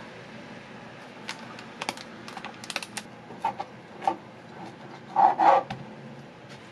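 Scattered light taps and clicks of hands preparing food in a kitchen, with a louder short clatter about five seconds in.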